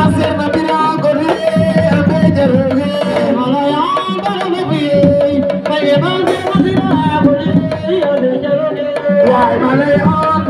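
Hand drums playing a fast, busy rhythm with a voice singing a wavering melody over them.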